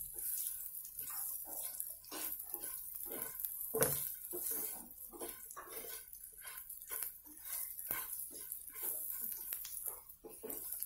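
Wooden spatula scraping and stirring onions and spices roasting in a black kadai, in quick irregular strokes about two a second.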